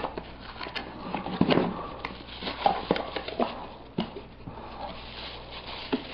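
Cardboard packaging being opened and a plastic bag handled: irregular rustling, crinkling and small knocks, with a few brief squeaks.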